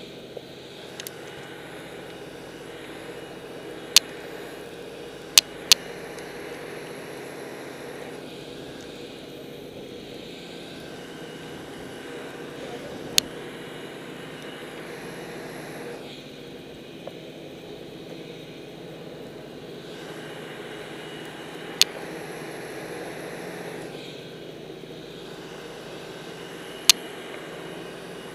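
Steady rushing noise on a helmet-mounted camera's microphone as a skier moves through deep powder snow, with a low steady hum underneath. About six sharp clicks or knocks on the camera stand out, scattered through.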